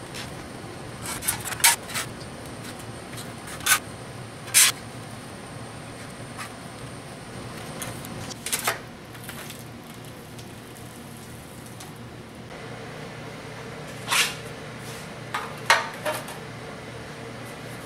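Steel sheet being handled and set down on steel work surfaces: a series of short, sharp metallic clanks and ticks at irregular intervals, over a steady low shop hum.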